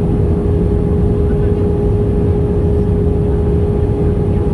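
Jet airliner cabin noise in flight, heard from inside the cabin: a steady low rumble of the turbofan engines and airflow, with a constant mid-pitched hum tone over it.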